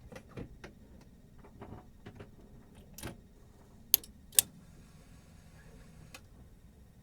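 With the engine off, scattered light clicks and rustles, then two sharp clicks about half a second apart a little past halfway, followed by a faint steady hum: the ignition key being handled and turned just before a cold start of the Saab 9-3 engine.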